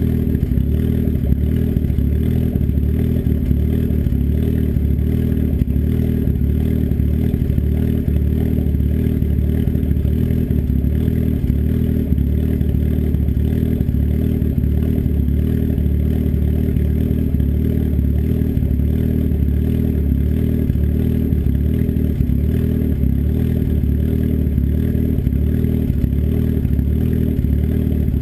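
Turbocharged engine with an S257 turbo and custom cams idling through an open downpipe with a 3-inch turndown and no muffler: a loud, steady, low pulsing rumble with no revving.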